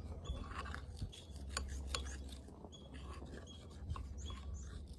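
A utensil stirring pancake batter in a bowl, with irregular scraping and light clicks against the bowl.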